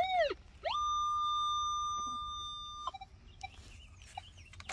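Metal detector sounding a strong target signal: a wobbling tone that swoops down and back up, then a steady high tone held for about two seconds that cuts off sharply, followed by a few faint short beeps.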